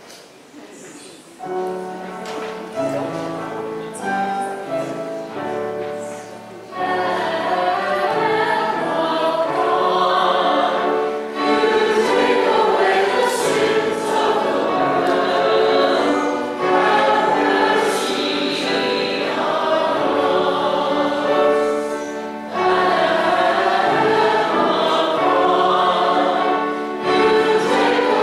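Hymn sung in church: an instrumental introduction of held notes for about five seconds, then voices join in singing with the accompaniment, louder and fuller.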